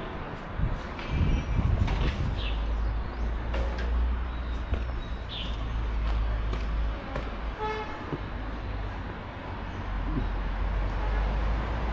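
Busy street sound: a motor vehicle's engine running close by as a low rumble, with a short horn toot about eight seconds in and a few brief high chirps.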